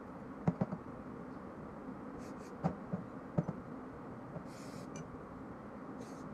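Small steel parts of a stripped-down TT pistol being handled and set down on a plastic table: a few sharp clicks and knocks in two clusters, in the first second and around three seconds in, with brief rustling scrapes between them.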